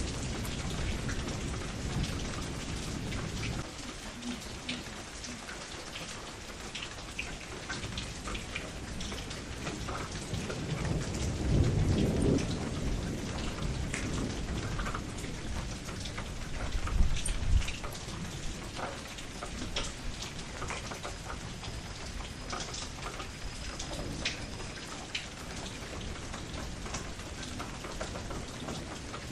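Steady rain falling, with many distinct drops hitting close by. Low rolls of thunder swell up about twelve seconds in, and again briefly a few seconds later.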